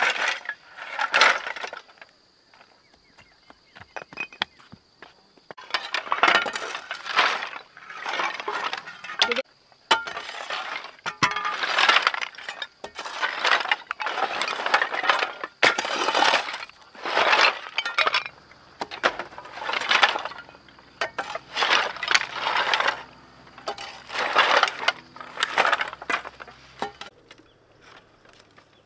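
Broken corrugated roofing sheets clattering as a load is dropped, then repeated scraping and clinking as a shovel scrapes up the brittle shards, roughly once a second.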